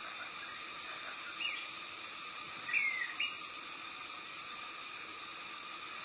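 Grey-cheeked bulbul (cucak jenggot) giving short, downward-sliding call notes: one about a second and a half in, then a quick pair near the middle. They sound over a steady high hiss.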